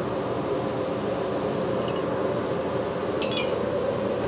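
Gas wok burner running with a steady rushing noise under a wok of stir-fry, with light metallic clinks of the metal spatula against the steel wok about two seconds in and again near three seconds.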